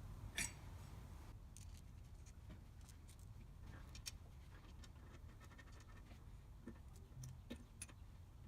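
Faint, scattered light clicks and taps, like small metal parts or tools being handled, over a low steady hum, with one sharper click about half a second in.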